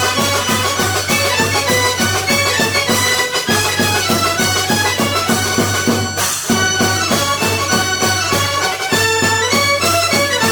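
Upbeat instrumental background music with a steady beat and a melody of sustained, reedy notes, in a folk style.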